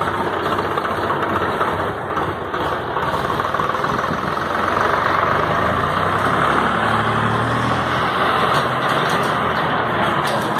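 Farm tractor engine running steadily, growing a little louder about halfway through.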